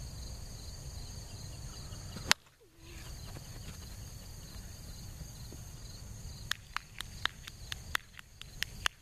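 A plastic wiffle ball bat hits a wiffle ball with a single sharp crack about two seconds in, the loudest sound. Insects buzz steadily throughout, and near the end comes a quick run of about ten sharp clicks.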